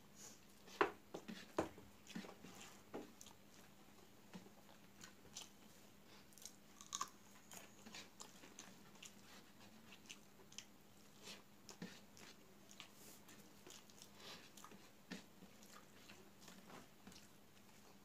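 A person eating rice and curry by hand: faint chewing and mouth smacks, with irregular soft wet clicks, a little louder in the first few seconds.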